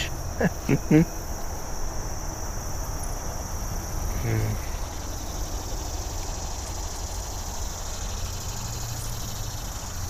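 Insect chorus on a riverbank: a steady, unbroken high-pitched drone, with a low rumble beneath it.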